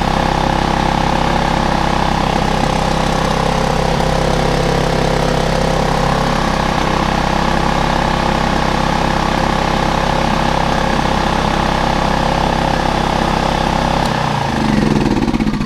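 Small portable petrol generator engine running steadily, just started after a hard start on choke. Near the end its note changes and dips in pitch.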